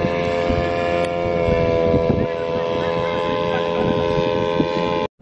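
Kite hummers droning: several steady overlapping tones form a chord over gusty wind rumble on the microphone. The drone cuts off abruptly near the end.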